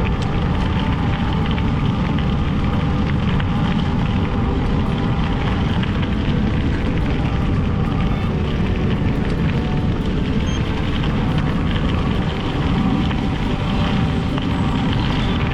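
Steady rush of wind on the microphone with bicycle tyres rolling over an off-road surface while riding.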